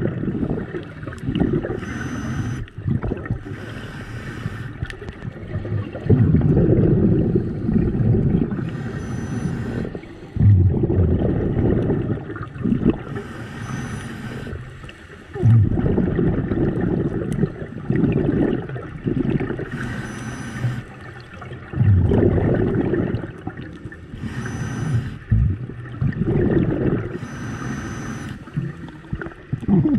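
Scuba diver breathing through a regulator underwater: a short hiss on each inhale, then a louder, longer bubbling rush of exhaled air, repeating every four to six seconds.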